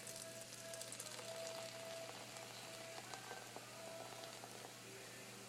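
Faint crackling fizz of vanilla Coke just poured into a pot, busiest in the first two seconds, under quiet background music.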